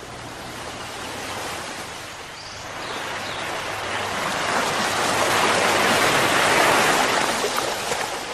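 Floodwater rushing and splashing, a steady noisy wash that swells in the middle and eases off near the end.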